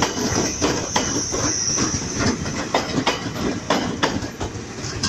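JR 205 series electric commuter train passing at close range, its wheels clicking irregularly over the rail joints, with a high squeal in the first two seconds.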